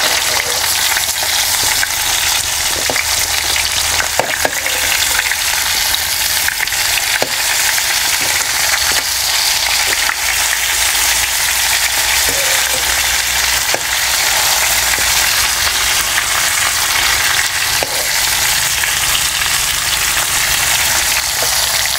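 Stuffed bitter gourds sizzling steadily in hot oil in a tava as they are turned, with a few light clicks of a metal spatula against the pan.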